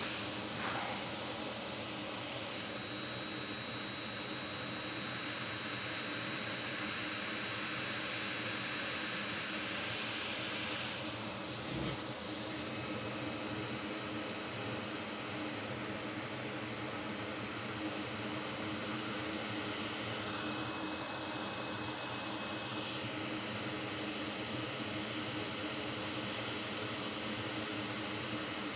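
Steady rushing hiss of moving air from workbench equipment, with one small knock about twelve seconds in.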